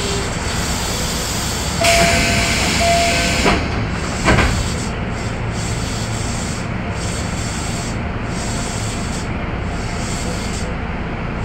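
Keio 7000 series electric train running, heard from inside the car: a steady rumble of wheels on rail. A burst of hissing lasts about a second and a half a couple of seconds in, followed by a single sharp knock.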